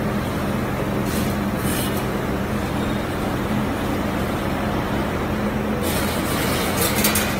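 2D CNC wire bending machine running, forming a wire clothes hanger: a steady motor hum, with short hissing, scraping bursts about a second in and again near the end as the wire is fed and bent.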